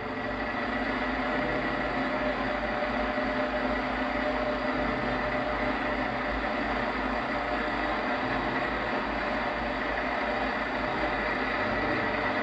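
A heavy diesel engine idling steadily: a low rumble with a constant hum, no change in speed.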